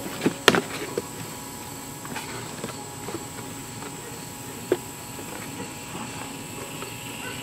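Scissors cutting and handling a cardboard box: a few scattered sharp snips and knocks, the loudest about half a second in, with others near one second and about five seconds in.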